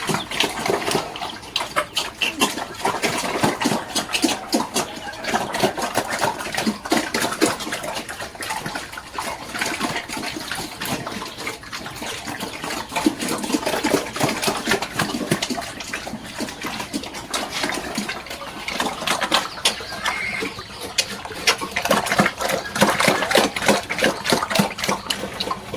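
Water splashing and sloshing, with many irregular knocks and clatters.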